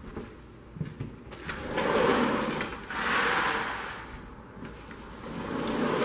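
A sliding glass patio door rolling open on its track, heard as swells of scraping noise, with a sharp click about a second and a half in.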